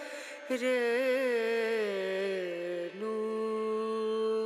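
Background music: a single wavering, hum-like melodic note that slowly slides down, then changes to a steady held note about three seconds in.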